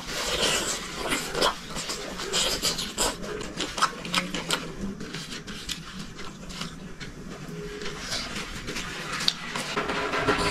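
Close-up eating sounds of rice and chicken curry eaten by hand: irregular chewing, smacking and small clicks and crackles.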